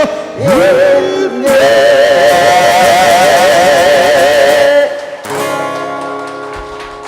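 Closing bars of a Korean gospel song with instrumental accompaniment: a singer holds a long final note with vibrato for about three seconds, then stops, leaving the accompaniment's last chord ringing and slowly fading.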